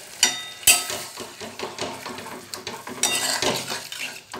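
Metal spatula clinking and scraping against a metal kadai as egg curry is stirred, with a couple of ringing clinks near the start and the watered gravy sizzling underneath.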